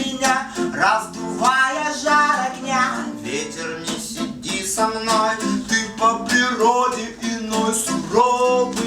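Acoustic guitar strummed steadily, with a voice singing over it, in a live acoustic song performance.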